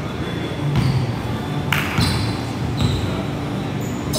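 Basketball being dribbled on a hardwood gym floor, a run of bounces at an uneven pace.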